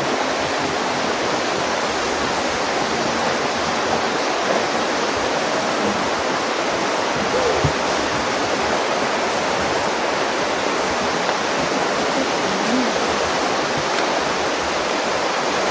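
Steady rushing of water from a mountain stream or small waterfall close by, an even hiss that does not change.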